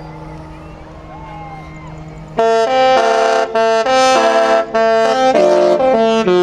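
Disney Destiny cruise ship's musical horn playing a tune, loud chorded notes changing every half second or so, starting about two and a half seconds in.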